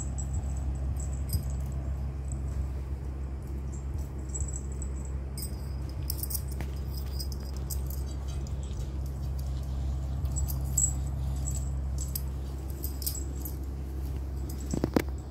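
An adult dog licking and nuzzling month-old puppies: small wet licking clicks and a collar tag jingling, over a steady low hum. A brief squeak near the end.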